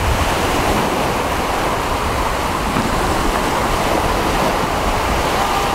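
Steady rushing noise of wind-driven surf and choppy sea, with wind noise on the microphone.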